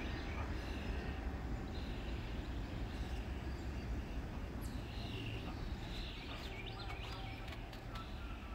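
Birds chirping in short bursts over a low, steady rumble from a tank-car freight train that has passed and is slowly fading into the distance.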